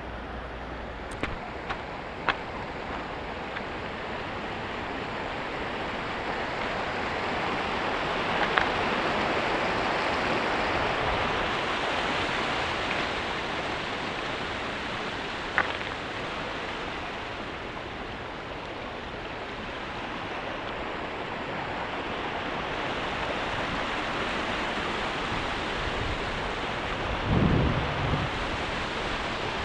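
Kagami River running over its bed: a steady rush of water that slowly swells and fades. A few sharp clicks are heard, and there is a dull thump near the end.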